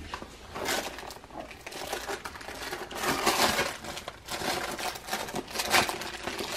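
Rummaging through a purse: things inside and the bag's material rustle and crinkle in irregular bursts.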